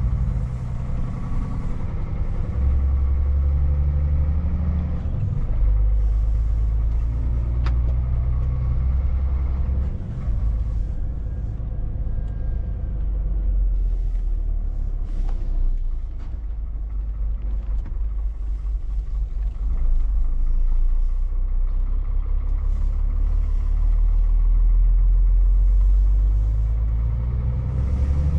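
Scania V8 diesel truck engine heard from inside the cab, pulling away and working up through the gears, its low drone stepping in pitch with each gearchange.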